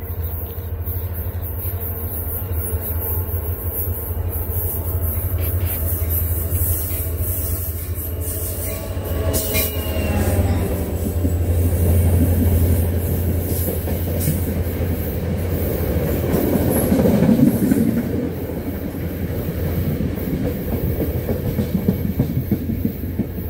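NJ Transit commuter train with single-level coaches approaching and rolling past the platform: a steady low rumble with wheels clattering over the rails, growing louder as the cars go by.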